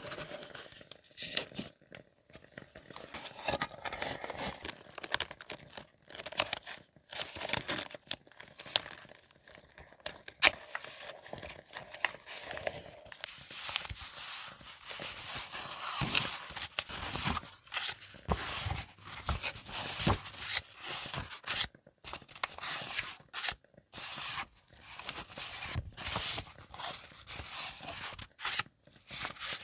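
Paper and stationery being handled close up: irregular rustling, crinkling and tearing of paper, with short taps and clicks.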